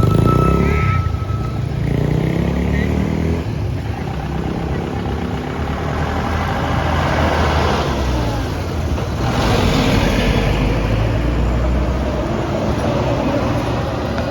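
Road traffic passing close by: vehicle engines running and accelerating, with two louder pass-bys in the middle.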